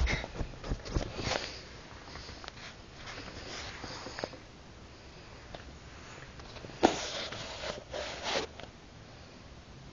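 Pekingese dog sniffing with its nose right at the microphone, in short noisy bursts: a cluster in the first second or so, then a sharp one about seven seconds in and another a second later.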